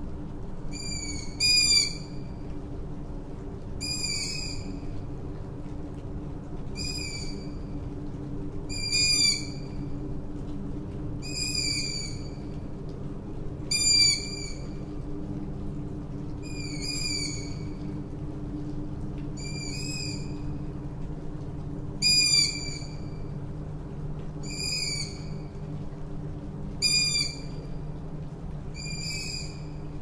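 A tawny owl gives a short, high, sharp call again and again, about every two and a half seconds, some calls louder than others. Underneath are light rain and a steady low hum.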